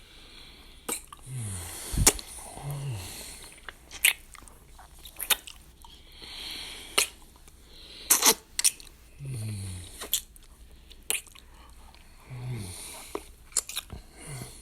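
A man kissing a hand over and over: about a dozen wet lip smacks at irregular intervals, with breaths and a few short, low falling hums between them.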